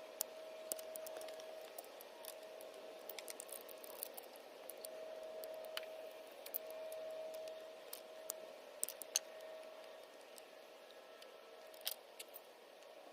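Scattered sharp clicks and light snips of hand tools and plumbing fittings being worked on a PEX water line, over a faint steady hum that swells and fades.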